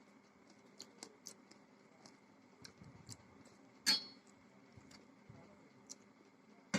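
Close-up eating sounds: scattered soft clicks and smacks of chewing and handling food on a plate. There is one sharper clink about four seconds in and another near the end.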